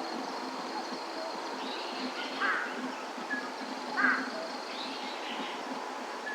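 A bird calls twice with short, harsh calls about a second and a half apart, the second louder. Under the calls runs a steady background hiss and low hum, with a few faint chirps.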